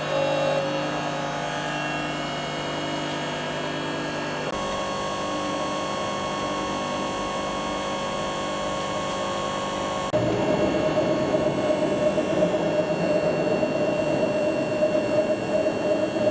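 Boschert EL 750 CNC punching machine running with a steady mechanical hum made of several fixed tones. About ten seconds in it turns louder and rougher, with a strong steady tone over a fast, uneven rattle.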